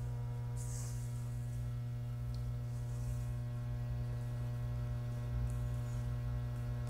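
Steady electrical mains hum: a constant low buzz with a ladder of higher overtones.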